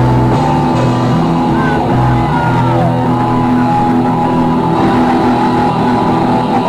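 A band playing rock-style music, with drums and a repeating bass line.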